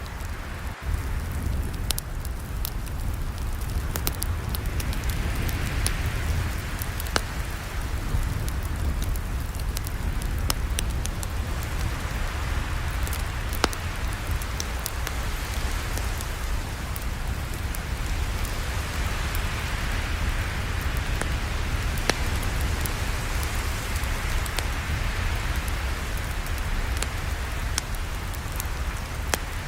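Campfire burning with a steady low rush of flames and constant crackling, with scattered sharper pops throughout.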